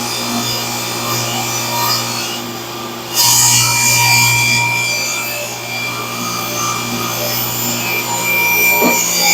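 Table saw with a rip blade ripping a thick black walnut slab, the motor running steadily. About three seconds in, the cut suddenly gets louder and harsher as the blade bites into the hard wood.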